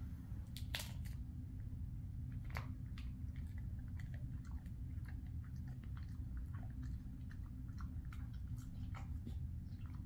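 Dog gnawing on a hard chew treat: irregular sharp crunches and clicks of teeth on the chew, the loudest about a second in.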